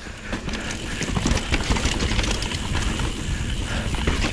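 Mountain bike descending a rough dirt trail: tyres rumbling over the ground with wind noise on the action camera's microphone, and a busy, irregular clatter of chain and frame knocks.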